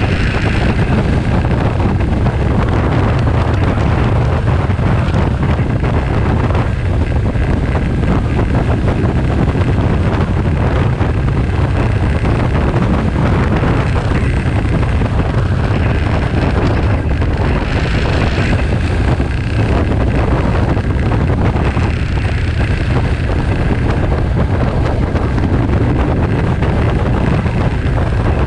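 Motorcycle running at road speed, heard from the rider's seat, with steady wind rush on the microphone over the engine.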